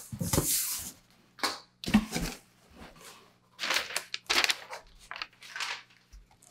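Paper packing filler rustling and crinkling as sheets are lifted out of a cardboard box, in several irregular bursts.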